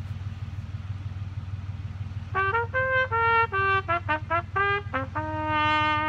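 Trumpet playing a quick phrase of short separate notes starting about two seconds in, ending on one long held note. A steady low hum runs underneath throughout.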